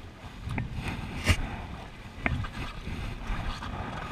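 Raft paddles dipping and splashing in river water as the crew paddles forward, with a few sharp knocks, the loudest about a second in.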